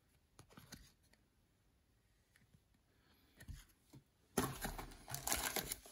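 Foil-wrapped trading card packs rustling and crinkling against a cardboard box as they are pulled out, starting suddenly about four seconds in after a few faint taps.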